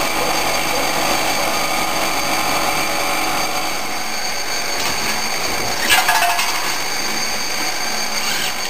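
CNC transfer machine running: a steady machining noise with several steady whines layered over it, and a sharp metallic clink about six seconds in.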